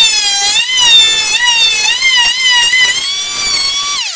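Oscillating multi-tool blade cutting into the pine edge of a door to notch a hinge recess: a loud high-pitched buzz whose pitch dips and recovers as the blade bites and eases. It winds down with a falling pitch and stops about four seconds in.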